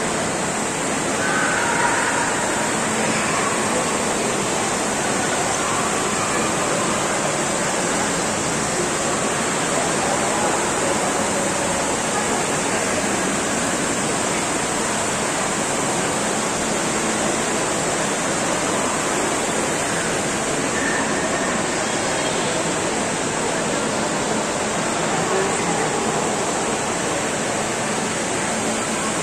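Indoor fountain water falling and splashing in a steady, unbroken rush.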